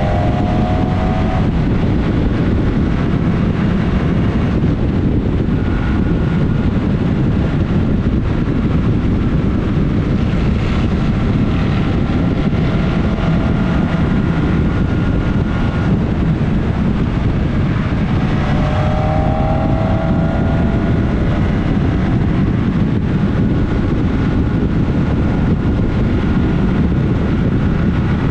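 Motorcycle ridden at speed, heard from an onboard camera: a steady rush of wind over the microphone with the Suzuki GSX-S1000S Katana's inline-four engine running underneath, its pitch rising briefly about two-thirds of the way through.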